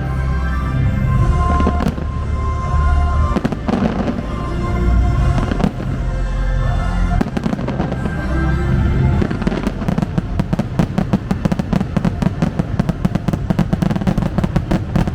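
Fireworks going off over loud show music, with deep booms. From about two-thirds of the way through, a fast crackling barrage of many quick pops takes over.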